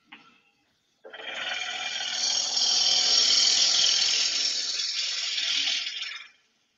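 A turning tool cutting into the end grain of a spinning wooden blank on a lathe, hollowing it out: a steady hiss of shavings coming off that starts about a second in and stops after about five seconds.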